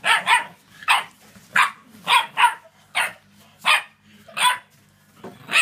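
A puppy barking during play: short, sharp barks, about ten in five seconds, evenly spaced.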